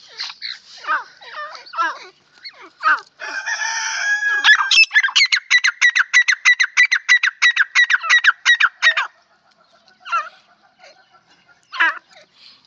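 Gray francolins calling: short downward-sliding notes, then a harsh drawn-out note about three seconds in, followed by a fast run of sharp repeated notes, about seven a second, lasting some four seconds before dying away to faint calls.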